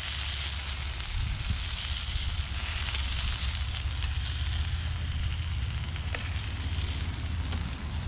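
Chicken and peppers sizzling in a hot skillet just off the fire, a steady hiss over a constant low rumble, with a few faint clicks.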